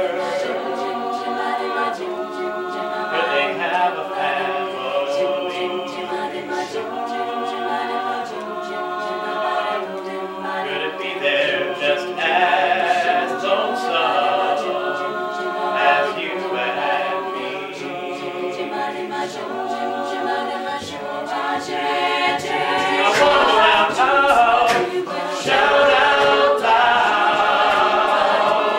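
A mixed-voice collegiate a cappella group singing in close harmony with no instruments. From about two-thirds of the way through, a beatboxer adds deep vocal percussion and the singing grows a little louder.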